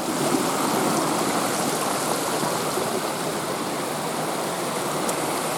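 Stream water rushing steadily down a rocky bed, an even, unbroken noise.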